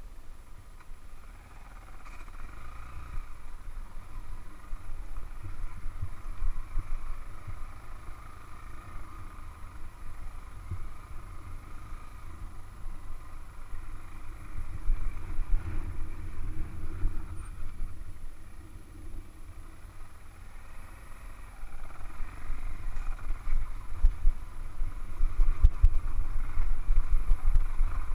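Small motorcycle engine running on a rough, rocky dirt trail, with wind rumbling on the camera's microphone. It gets louder over the last several seconds.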